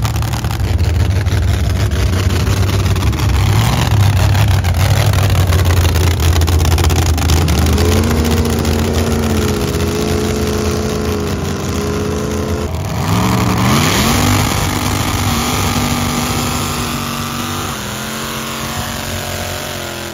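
AMC Gremlin burnout car's engine rumbling at low revs, then revved up about eight seconds in and held at high revs for a burnout. The revs drop briefly partway through, climb again and hold, then ease off near the end.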